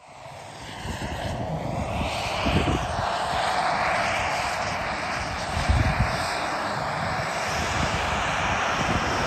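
Turbine engine of a 1:4 scale Tomahawk Aviation F-16 model jet running on the runway: a steady rushing jet noise that fades in over the first two seconds.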